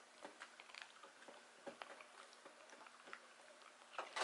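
Dachshund gnawing a hard bone-shaped dental chew: faint, irregular crunches and clicks of teeth on the chew.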